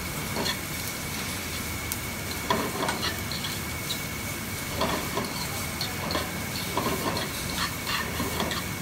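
Julienned carrots, onions and garlic sizzling in oil in a frying pan, stirred and tossed with a fork that scrapes and clinks against the pan at irregular moments.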